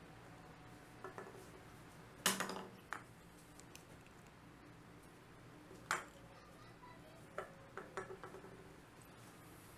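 An aluminium soda can tips over and clatters on a wooden tabletop about two seconds in, with a short metallic ring. A sharp knock follows a few seconds later, then a cluster of light taps near the end as the can is grabbed by hand and set back upright.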